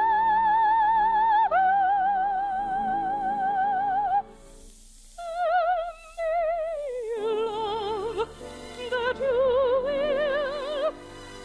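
Operatic soprano singing with wide vibrato over an orchestra: a long high held note for about four seconds, a brief break, then shorter phrases stepping down in pitch and rising again.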